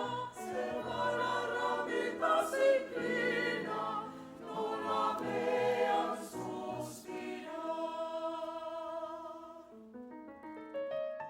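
A choir singing a sustained choral piece with piano accompaniment; about ten seconds in the voices stop and the piano carries on alone with separate single notes.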